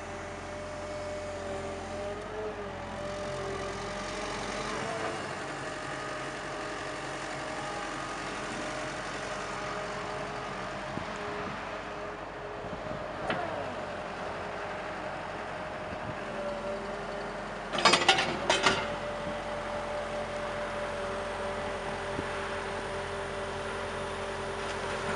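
2012 Cat M315D wheeled excavator's diesel engine and hydraulics running with a steady whine that shifts slightly in pitch as the boom and arm move and the upper structure swings. A quick series of metal clanks comes about three-quarters of the way through.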